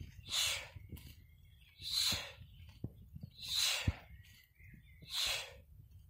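Sharp, forceful exhalations, one with each karate knee strike, four in a row about every one and a half seconds.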